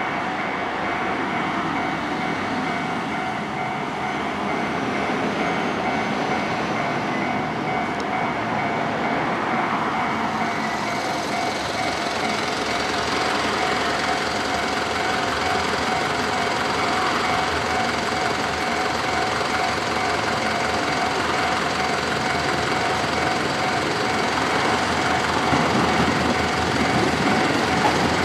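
Level crossing alarm ringing steadily, over the noise of an approaching three-car KiHa 11 diesel railcar train that grows louder near the end.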